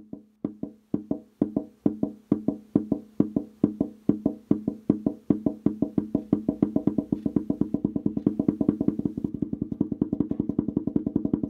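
Clock-like ticking sound effect: short, low-pitched knocks that start at about two or three a second and steadily speed up to about six or seven a second, building tension.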